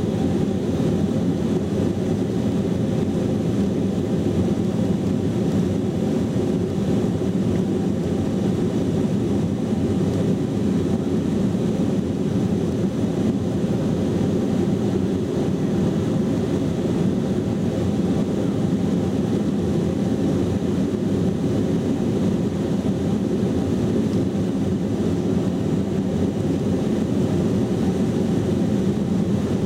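Cabin noise of a Boeing 707-300 climbing out just after takeoff, heard from the rear cabin: a steady, loud, deep rumble of its four Pratt & Whitney JT3D turbofans at climb power, mixed with airflow noise, unchanging throughout.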